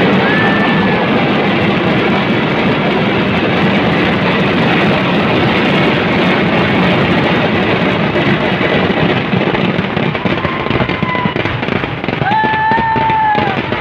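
Dense Kerala temple fireworks barrage (vedikettu): countless explosions merge into one continuous, unbroken din. A few short steady tones sound over it, the longest near the end.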